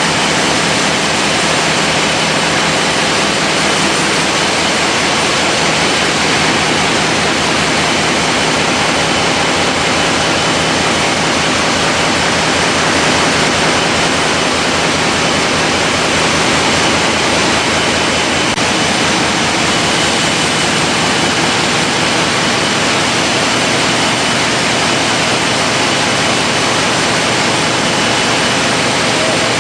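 Loud, steady drone of running diesel machinery, with a thin steady high whine over it.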